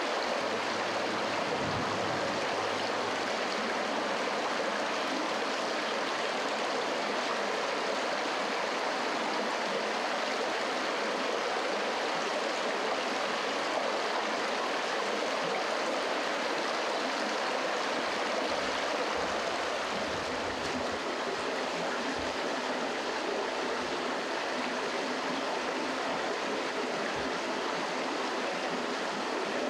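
Steady rushing of running water, like a nearby creek, unbroken and even in level.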